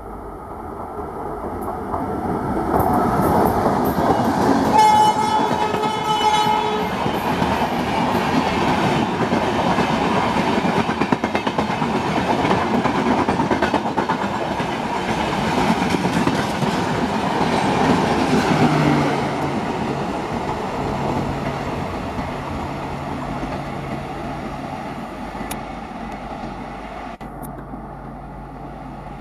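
WAP-5 electric locomotive and its express passing at speed, with wheel and rail noise and clickety-clack that swell as the train reaches the microphone and fade as the last coach recedes. About five seconds in, a horn sounds once for about two seconds.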